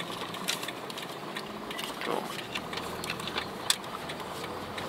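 Small plastic zip-top bag crinkling and rustling as it is handled, with scattered small crackles and clicks.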